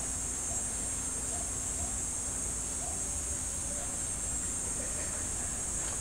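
Steady high-pitched drone of insects calling together, an even chorus that holds one pitch.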